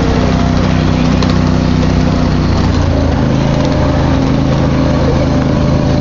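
Small engine of a ride-on miniature train running steadily as the train rolls along the track, its pitch changing about two and a half seconds in.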